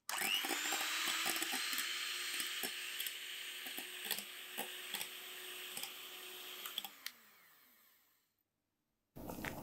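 Electric hand mixer whipping egg whites and sugar into stiff meringue, its beaters clicking now and then against the bowl. About seven seconds in it is switched off and its motor whine falls in pitch as it winds down to silence.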